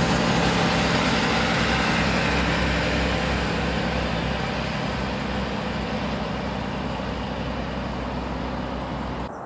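Class 165 diesel multiple unit pulling out of the station: a steady diesel engine drone with a low hum and rumble, fading gradually as the train draws away.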